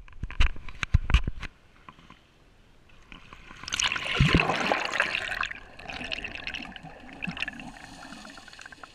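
Seawater splashing and slapping against a waterproof camera held at the surface. A little under four seconds in comes a loud rush of bubbles as it plunges under, followed by muffled underwater bubbling and gurgling.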